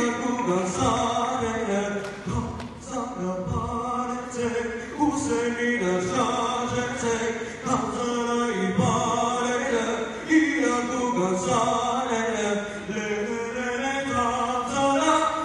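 A young man singing solo into a handheld microphone, holding long, wavering notes with short breaks between phrases.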